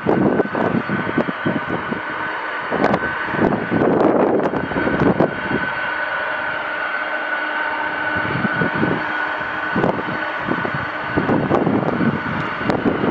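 Boeing 747-400's jet engines running, a steady high whine over a broad rumble, with gusts of wind buffeting the microphone.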